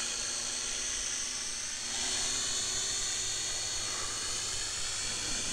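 Bao Niu HC629W small folding quadcopter in flight, its brushed motors and propellers giving a steady buzz that grows a little louder about two seconds in.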